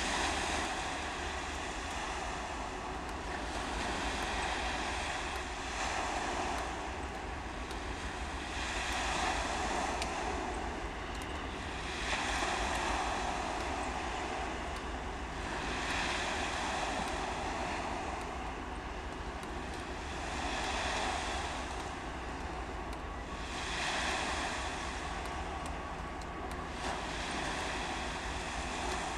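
Small waves washing onto the shore, surging and falling back every three to four seconds, over a steady low wind rumble on the microphone.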